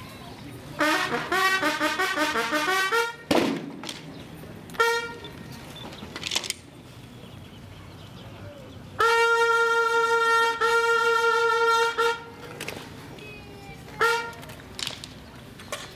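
Military bugle sounding a call: a quick run of notes, then a few short single notes, then two long held notes and one last short note.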